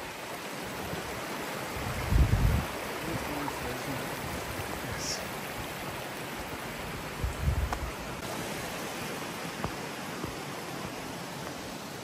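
Shallow woodland stream running steadily over stones. Two brief low rumbles on the microphone stand out, about two seconds in and again at about seven and a half seconds.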